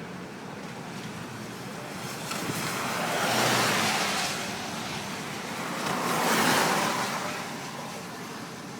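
Highway traffic passing below an overpass: two vehicles go by with a swelling tyre-and-wind whoosh, one about three seconds in and another about six seconds in.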